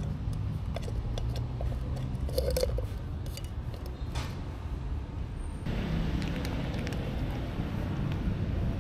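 Cats eating close to the microphone: scattered small clicks of chewing and food against plastic dishes over a steady low rumble. About six seconds in, the background turns abruptly louder and hissier.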